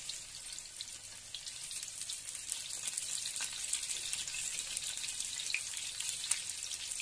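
Whole bitter gourds (karela) deep-frying in hot mustard oil in a kadhai: a steady sizzling hiss with scattered small crackles.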